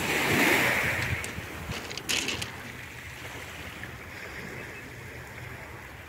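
Small waves of the Black Sea breaking and washing up a pebble shore, with a hiss of surf strongest in the first second and another short rush about two seconds in, then a lower, steady wash.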